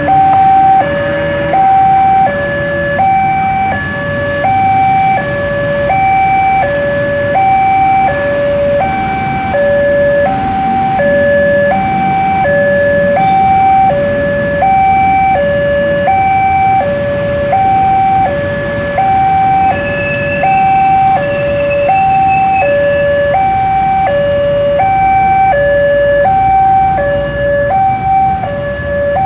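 Indonesian railway level-crossing warning alarm sounding from its loudspeaker: an electronic two-tone signal alternating steadily between a higher and a lower tone, with road traffic underneath. It is the crossing's warning that a train is approaching, sounding while the boom barrier is down.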